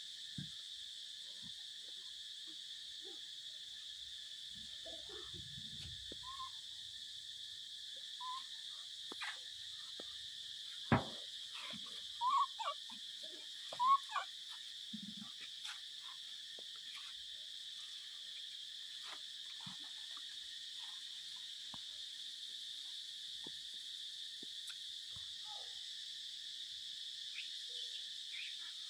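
Macaques giving short squeaky calls now and then, the loudest clustered near the middle, with one sharp knock about eleven seconds in, over a steady high insect drone.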